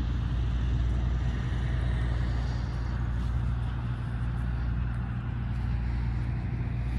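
A steady low rumble with a deep, unchanging hum and no distinct events.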